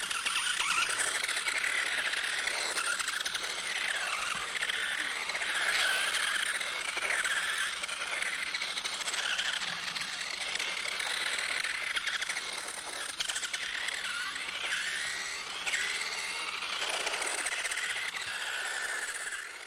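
Small electric motor of a remote-control toy whining, its pitch gliding up and down over and over as it speeds up and slows, with a steady hiss behind it.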